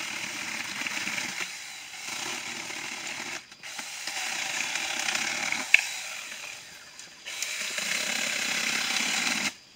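Saker mini cordless electric chainsaw running and cutting through branches in about four runs of a few seconds each, each one stopping abruptly. A single sharp click comes about halfway through.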